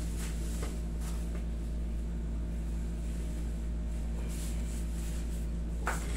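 Steady low hum of a wall-mounted air conditioner running, with one brief sharp sound near the end.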